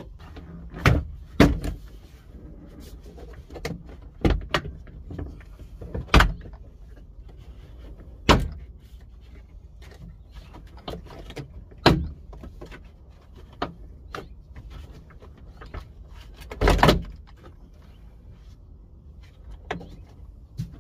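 Plastic interior trim of a Chevy Cobalt SS being worked loose by hand: irregular sharp clicks and knocks as the rear quarter trim panel is pulled at and its clips let go. There is a longer rattling knock about three-quarters of the way through.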